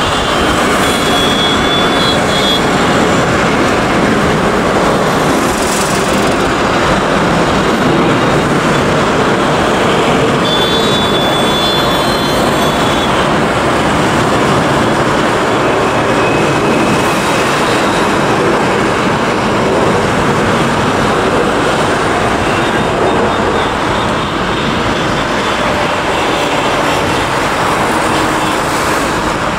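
Loud, steady jet roar from a Boeing 737's twin engines as the airliner climbs away after takeoff.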